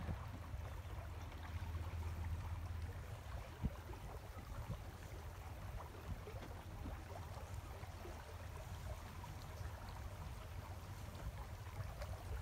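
A boat's motor running at a low, steady drone, with water trickling and lapping along the hull as the boat moves.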